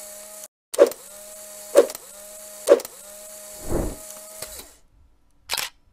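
Camera sound effect for a shutter logo: sharp shutter clicks about a second apart, three in all, each followed by a steady motor whir like a film-advance winder. A low swell comes about four seconds in, and one last click comes near the end.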